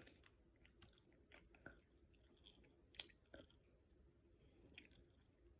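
Faint chewing and mouth sounds of a person eating, with a few soft wet clicks and smacks; the sharpest comes about three seconds in.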